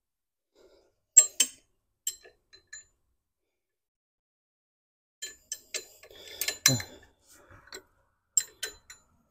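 Scattered metallic clicks and clinks of hand tools and loose bolts on engine brackets as they are being unbolted, with a quiet gap in the middle and a duller knock about two-thirds of the way through.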